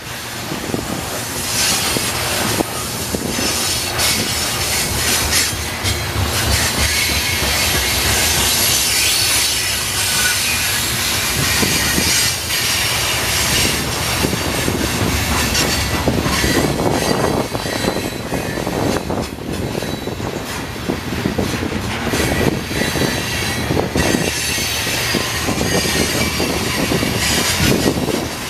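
Loaded or empty CSX coal hopper cars rolling past, a steady loud rumble and clatter of steel wheels over the rails, with wheel squeal in the high range.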